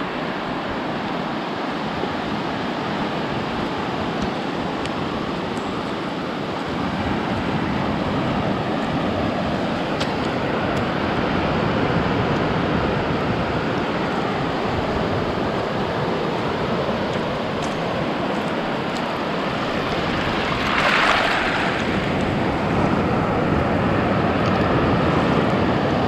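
Ocean surf washing in, a steady rush of small waves at the water's edge, with a brief louder hiss of water about 21 seconds in.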